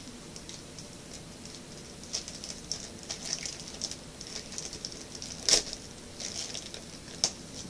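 Thin plastic wrapper crinkling and rustling in irregular bursts as a small toy package is handled and opened by hand, with two sharp clicks, one a little past halfway and the louder-sounding pair's second near the end.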